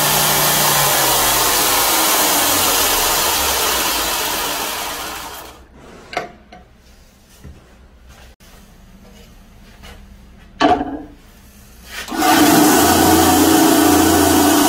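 Belt grinder running, then winding down to a stop about five seconds in; in the quiet that follows there are two light knocks. Near the end a bandsaw starts running, cutting wood.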